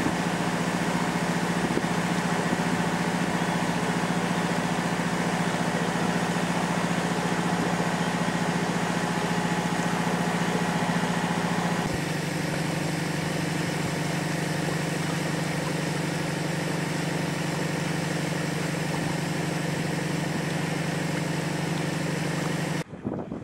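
A boat's engine running steadily, with a low even hum; its tone changes a little about halfway through.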